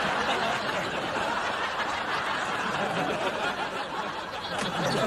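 Sitcom studio audience laughing, one long laugh.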